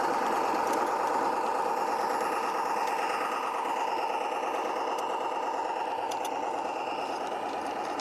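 Model Walker railcar on a 45mm gauge garden railway running past with a steady mechanical drone, and a few faint clicks partway through.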